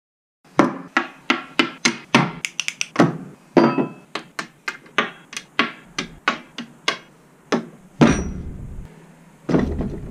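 A run of about two dozen sharp knocks, each ringing briefly, some in quick succession, followed by two heavier hits with a deep boom about eight and nine and a half seconds in.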